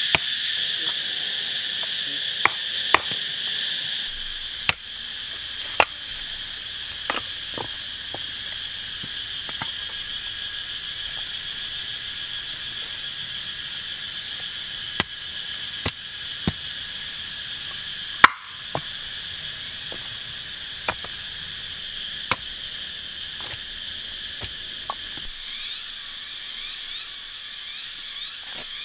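A steady high insect chorus, with sharp irregular knocks of a knife blade splitting small sticks of kindling. Near the end comes the scrape of a ferrocerium rod being struck over tinder.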